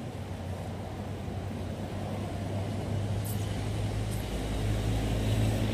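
A motor vehicle's engine hum, growing steadily louder as it approaches.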